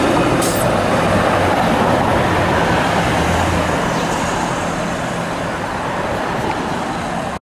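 SEPTA Kawasaki light-rail streetcar passing close by and running off down the street, its running noise fading slowly, with road traffic around it. The sound cuts off abruptly near the end.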